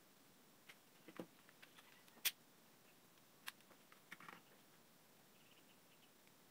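Faint clicks and taps of fingers handling the lead wires and plastic parts of an electric fan motor, with one sharper click a little over two seconds in.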